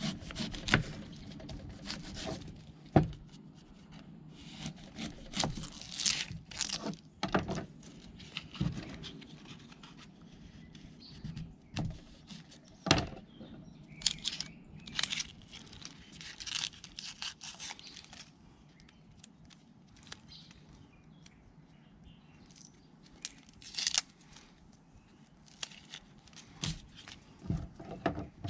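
Dry, papery onion skin crackling and tearing as an onion is trimmed with a kitchen knife and peeled by hand on a plastic cutting board, with scattered sharp taps.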